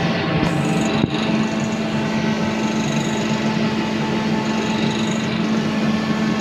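Air conditioning equipment running: a steady hum over even fan noise, with one brief click about a second in.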